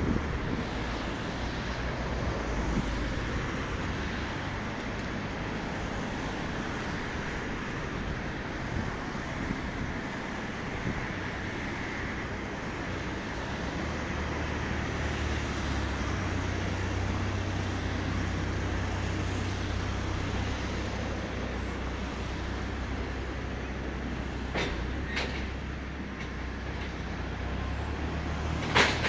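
Steady rumble of engines and traffic, with a low engine drone setting in about halfway through and a few short knocks near the end.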